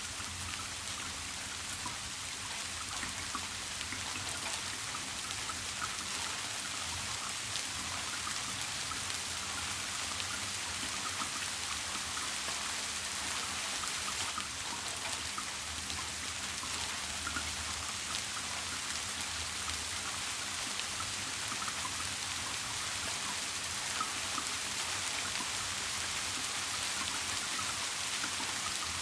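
Steady rain falling: an even hiss with many small drop ticks, unchanging throughout.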